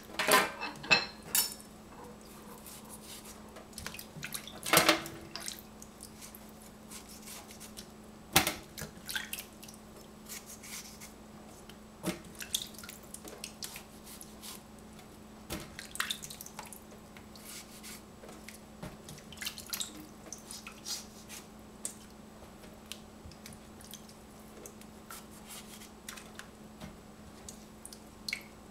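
Scattered light clicks, taps and drips as strawberries are hulled with a small knife over a steel saucepan of water in a stainless steel sink, with a few louder knocks near the start and around five and eight seconds in. A faint steady low hum runs underneath.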